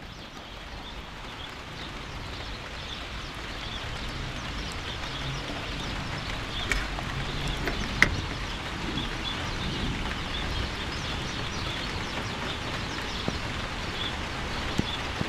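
Steady hiss of thunderstorm rain, building over the first few seconds. A bird chirps again and again over it, and two sharp ticks come near the middle, the louder about eight seconds in.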